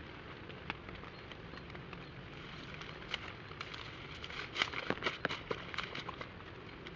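Steady rain with irregular sharp ticks of heavy drops striking a nearby surface, thickest about four to six seconds in.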